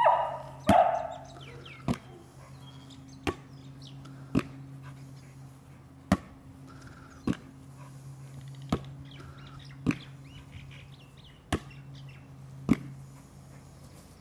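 A volleyball being hit back and forth between a woman's forearms and a border collie's nose, giving a sharp knock roughly every second and a bit, about eleven in all. A short, louder, noisier burst comes at the very start.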